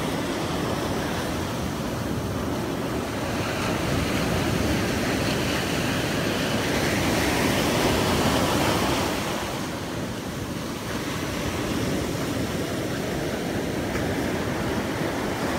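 Ocean surf breaking and washing up a sandy beach in a steady roar, swelling to its loudest about halfway through, with wind rumbling on the microphone.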